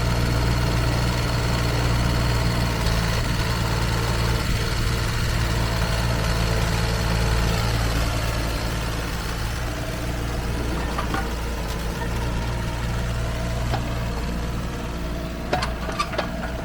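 Kubota K008-3 micro excavator's small three-cylinder diesel engine running steadily at idle, with a few sharp clicks near the end.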